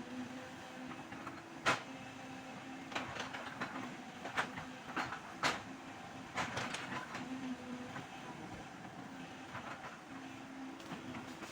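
Hydraulic excavator running steadily, with a series of sharp knocks and clanks from the machine as it works.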